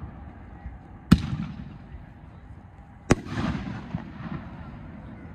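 'Cowboy Fight' consumer fireworks cake firing shots: two sharp bangs about two seconds apart, one about a second in and one about three seconds in, each trailing off over about a second.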